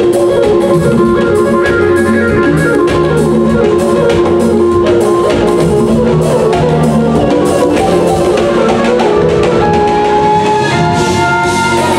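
Live jazz-fusion band playing at full volume: drum kit, guitar and keyboards, with organ and synthesizer notes held over the groove. Near the end, a higher sustained synth-like line comes in.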